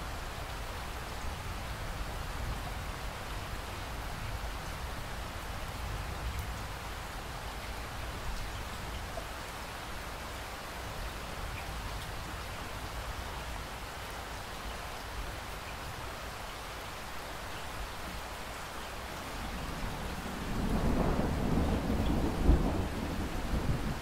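Steady rain falling. About twenty seconds in, a louder roll of thunder builds and keeps rumbling.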